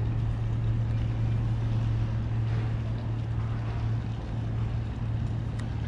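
Boat engine running steadily at low speed during close-quarters manoeuvring, a constant low hum.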